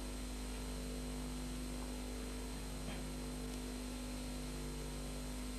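Steady hiss with a low electrical hum: the noise floor of an old videotape recording. There is a faint click about three seconds in.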